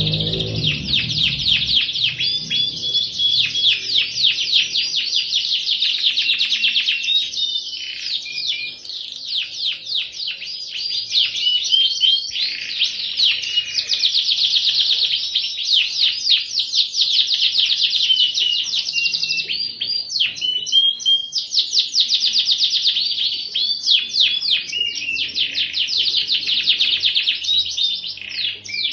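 Domestic canary singing vigorously without pause: long rapid trills and rolling chirped phrases, high-pitched, with brief breaks between phrases about 8, 12 and 20 seconds in.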